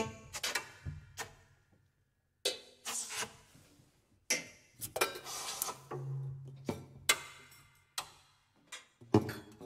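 Sparse free-improvised music on prepared piano, played on the strings inside the grand: isolated sharp struck and plucked sounds that die away, separated by short silences, with a low held note around six seconds in.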